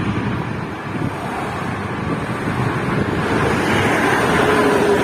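A bus going past at speed: a steady rush of tyre and wind noise with wind buffeting the microphone, and a faint hum growing louder near the end.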